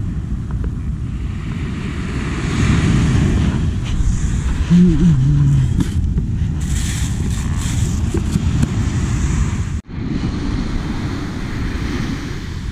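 Wind buffeting the microphone over surf washing up the beach, with a short low hum about five seconds in.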